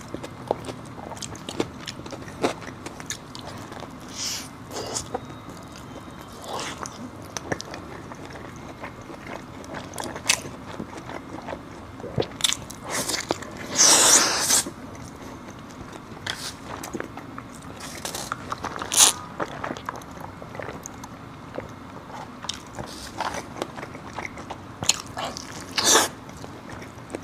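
A person biting and chewing food close to the microphone: irregular crunches and mouth clicks, the loudest a longer crunch about halfway through.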